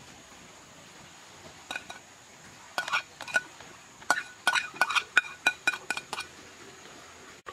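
A dozen or so sharp, ringing clinks of a plate against a clay cooking pot as chopped herbs are tipped and scraped off the plate into the pot. They come in three quick groups, the last and longest in the second half.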